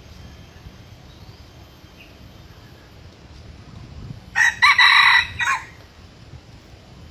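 Red junglefowl rooster crowing once, about four seconds in: a short, clipped crow lasting about a second and a half, loud over a quiet background.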